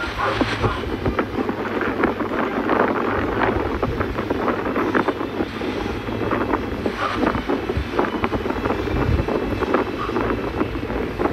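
Wind buffeting the microphone, a loud rumbling, gusty rush with constant crackling thumps.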